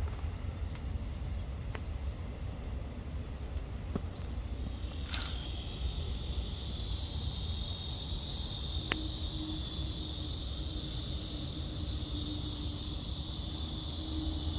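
Insects chirring in a steady high-pitched chorus that comes in about four seconds in, over a steady low rumble, with a faint steady hum joining later and a couple of short clicks.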